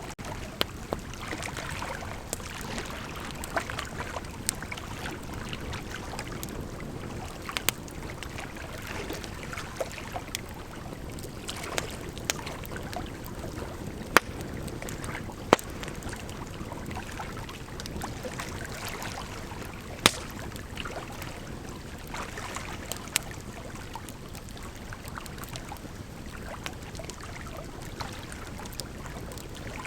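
Bonfire crackling: a steady hiss of burning with frequent sharp pops and snaps, a few of them much louder than the rest.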